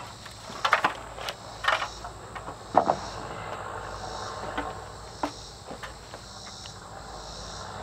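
Steady chorus of insects in the background, with a few short knocks and clunks from the wooden framing boards being lifted and set against the posts.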